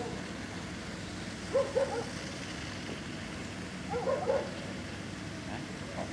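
A dog giving short, high yelps in two quick bursts of a few calls each, about a second and a half in and again about four seconds in, over a steady outdoor background.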